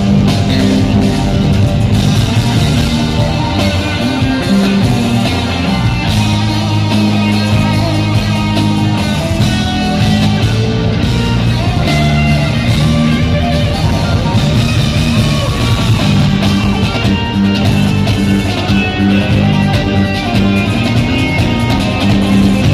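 Live rock duet of electric guitar and drum kit, played loudly over an arena sound system: guitar lines over a steady drum beat.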